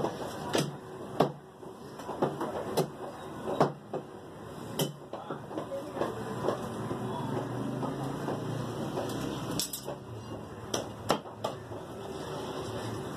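Butcher's cleaver chopping mutton on a wooden chopping block: sharp, irregular chops, several in the first five seconds and a few more from about nine and a half seconds in, over a steady background din.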